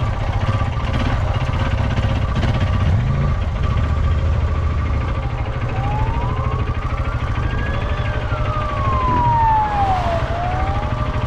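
Motorcycle engine running steadily. About six seconds in a siren starts wailing: its pitch rises slowly, falls, then begins to rise again.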